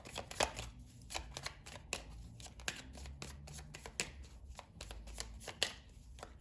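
A deck of tarot cards being shuffled by hand: an irregular run of quick card slaps and flicks.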